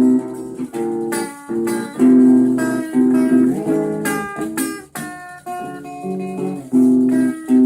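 Guitar being played: plucked and strummed chords in quick succession, with a brief pause about five seconds in.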